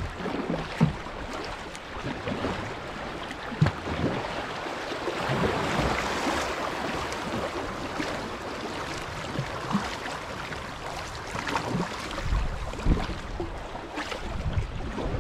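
Shallow river water rushing and rippling around a kayak running through a riffle, swelling in the middle, with occasional sharp splashes and knocks of the paddle.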